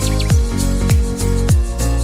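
Background electronic music with a steady beat: a deep kick drum that drops in pitch on each beat, a little under two beats a second, under sustained synth notes and sharp percussion hits.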